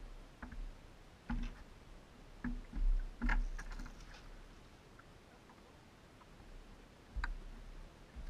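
A few scattered knocks and bumps on a small open fibreglass boat, clustered in the first half and once more near the end, over a low steady rumble.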